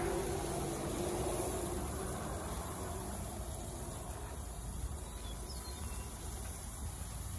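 A passing vehicle fades away over the first few seconds, leaving a steady outdoor background with a low rumble.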